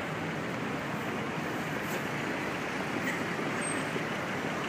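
Steady street traffic noise, with the low rumble of a motor vehicle running.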